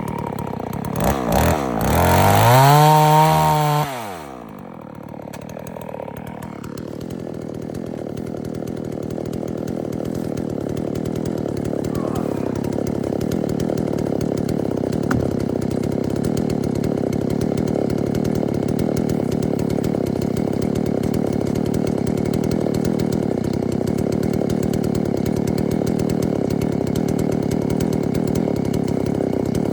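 Farmmac F380W gas chainsaw revving up sharply and back down in the first few seconds, then running steadily and loudly under load as it cuts through a log.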